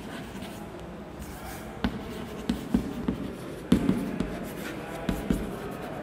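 Chalk writing on a blackboard: scratching strokes broken by several sharp taps of the chalk against the board.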